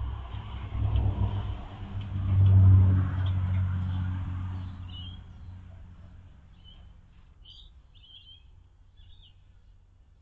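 A motor vehicle's engine rumble swells, peaks about three seconds in and fades away, like a vehicle passing by out of sight. After it, birds chirp in short calls.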